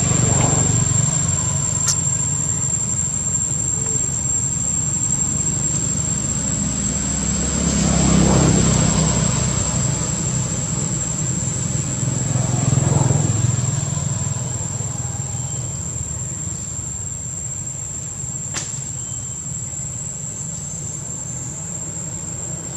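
Outdoor ambience: a steady high-pitched insect drone over a low rumble, with vehicles passing, swelling at the start, about eight seconds in and about thirteen seconds in, then easing off.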